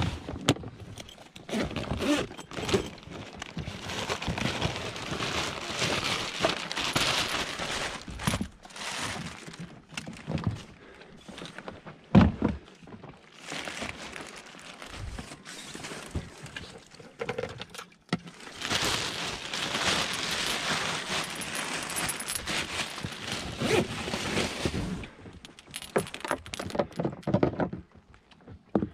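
Handling noise of a red plastic petrol tank and its fuel line: long spells of rattling, clicking and scraping with a few sharp knocks, the loudest about twelve seconds in.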